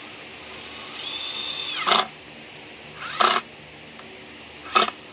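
A power tool run in three short bursts. The first is a whine that builds for about a second and ends in a loud burst, then come two more quick loud bursts about a second and a half apart.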